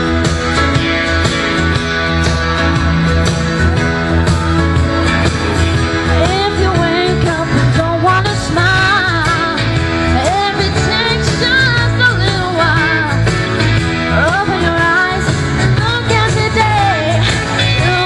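Music with guitar plays through the stage speakers. A young woman's voice starts singing the melody into a microphone about six seconds in.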